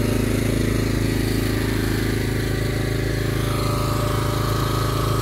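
Hydraulic log splitter's engine running steadily at a constant speed. A faint steady higher whine joins about three seconds in.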